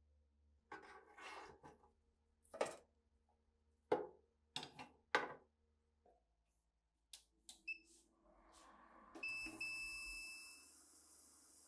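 A wire basket of rusty rifle parts set down in a stainless ultrasonic cleaner tank with a short metallic clatter and several sharp knocks, then clicks from the plug and switch. Electronic beeps come from the cleaner's control panel, a short one and then a longer held one, and about nine seconds in the ultrasonic cleaner starts with a steady high hiss.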